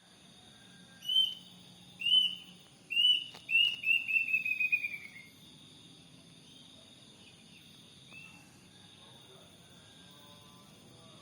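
Kedasih cuckoo calling: two separate whistled notes, then a run of notes that quickens and falls in pitch, followed later by one faint note. Insects trill steadily in the background.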